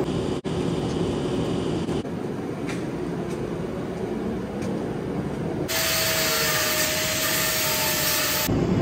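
Angle grinder grinding a steel trailer frame to prepare it for welding, heard in short clips that cut in and out. The loudest clip, from about two-thirds of the way through, is a harsh grinding hiss over the motor's steady whine.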